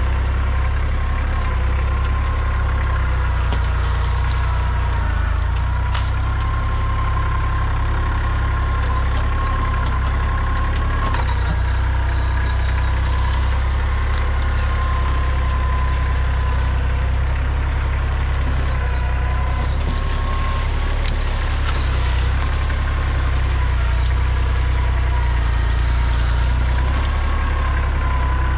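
Kubota compact tractor's diesel engine running steadily while it works its front loader into brush and dirt, with a steady high whine over the low engine note. A few sharp snaps of branches break through now and then.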